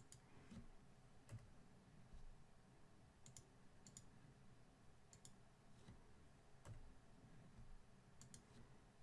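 Faint clicking of a computer mouse: about a dozen scattered clicks, several in quick pairs, over quiet room tone.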